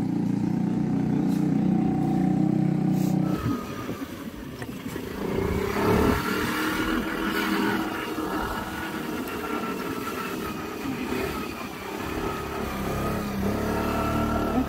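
Motorcycle engine running under load up a steep lane, its pitch rising and falling with the throttle. A heavier, steady low engine drone in the first three seconds cuts off suddenly.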